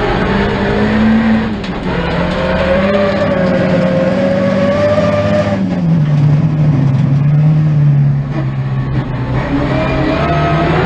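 Rear-wheel-drive folk-race car's engine heard from inside the stripped, roll-caged cabin, pulling hard under load. Its pitch climbs about a second in, holds, drops at about six seconds as the driver lifts, and rises again near the end, over a steady rumble of tyres and gravel.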